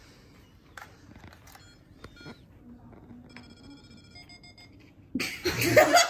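Short electronic beeps from a Monopoly game's handheld electronic banking unit as its buttons are pressed, with a few soft clicks in between. A person's loud voice breaks in near the end.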